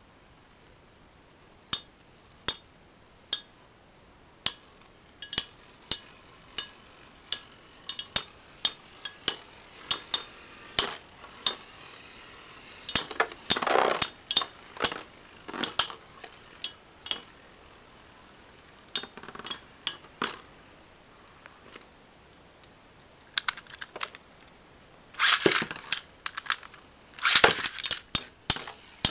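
Two metal Beyblade tops, Blitz Unicorno 100RSF and Phantom Orion B:D, clashing as they spin in a plastic stadium: sharp clacks, at first single hits under a second apart, then rapid rattling flurries about halfway through and again near the end, the loudest near the end.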